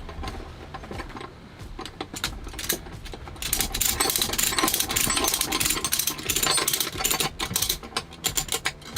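Ratchet strap's ratchet mechanism clicking rapidly as the strap is worked, with a dense run of clicks in the middle and scattered clicks before and after.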